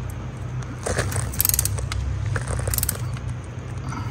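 Torque-wrench ratchet clicking in short runs as a bolt on a Ford 5R55S transmission solenoid pack is run down to 71 inch-pounds, over a steady low hum.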